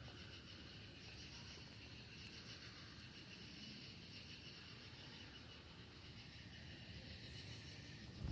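Quiet outdoor ambience: a faint steady chirring of insects, with a low rumble underneath.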